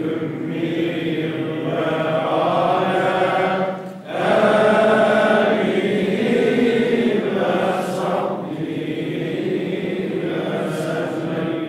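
An imam's melodic Quran recitation, chanted aloud in a long flowing phrase with a short pause for breath about four seconds in.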